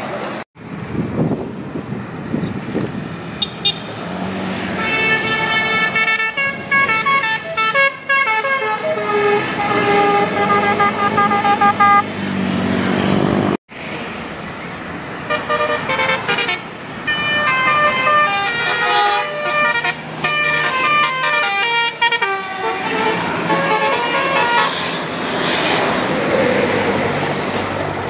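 Bus telolet "basuri" horn playing a tune of stepping, multi-note horn tones, in two long passages about five seconds apart, over bus engine and traffic noise.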